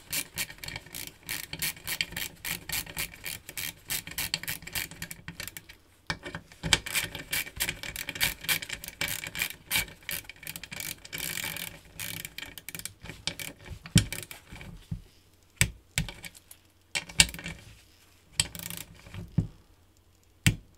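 Ratchet wrench clicking as it is worked back and forth: two long runs of rapid clicks, then from about twelve seconds in only a few separate, louder single clicks.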